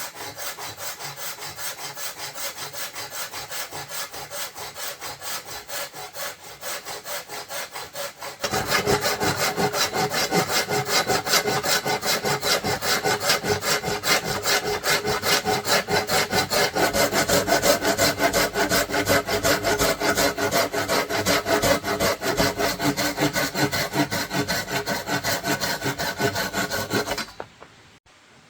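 Hand saw cutting through wood in rapid, even back-and-forth strokes, getting louder about a third of the way in and stopping suddenly near the end.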